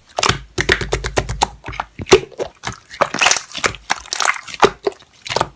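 Slime being squished and pressed by hand, a dense, irregular run of wet clicks and pops.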